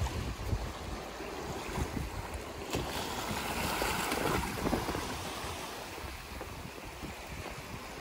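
Small sea waves washing in among shoreline rocks and over sand, a rushing, splashing hiss that swells about halfway through and then eases. Wind buffets the microphone with a low rumble.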